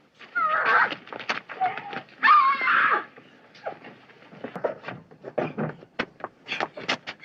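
A woman's high-pitched wailing cries and shrieks for about the first three seconds as she struggles, then a scatter of short knocks and scuffs.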